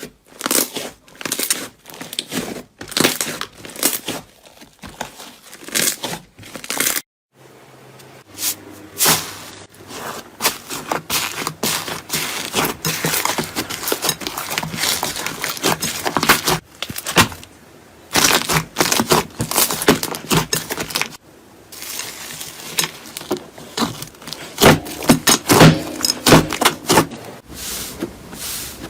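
Slime being squished and stretched, making rapid sticky pops and crackles, with a few short breaks.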